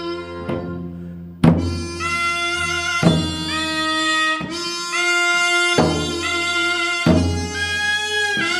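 Korean traditional quartet music: a double-reed taepyeongso and piri hold loud, reedy notes that scoop up into each pitch over a low bowed dae-ajaeng tone, punctuated by several sharp janggu drum strokes, the first and loudest about a second and a half in.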